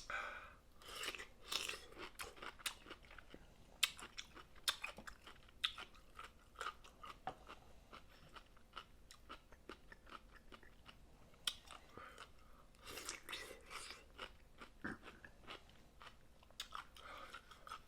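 Close-miked eating of snow crab: a run of irregular crunches, crackles and chewing sounds at a faint level.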